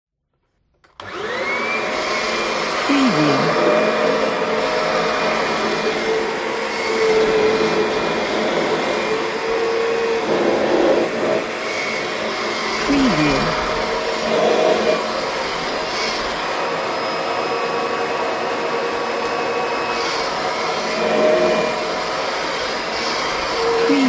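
Vacuum cleaner switching on about a second in, its motor whine rising quickly to speed, then running while vacuuming. The sound swells and dips every few seconds.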